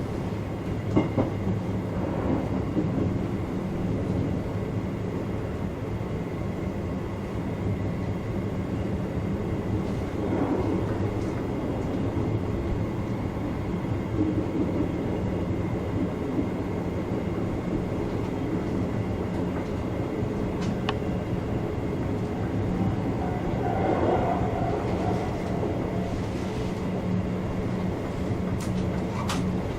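Chichibu Railway electric train running along the line, heard from the front of the train: a steady low running hum from motors and wheels, with a few short clicks from the rails.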